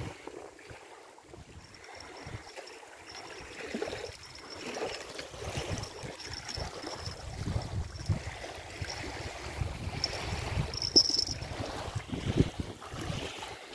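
Wind buffeting the microphone in uneven low gusts, growing stronger a few seconds in, with rustling and knocks from the camera being handled.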